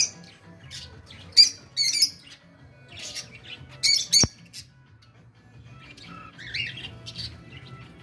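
Aviary of lovebirds and other cage birds squawking in short, high-pitched bursts, the loudest about a second and a half and four seconds in, with softer chirps between.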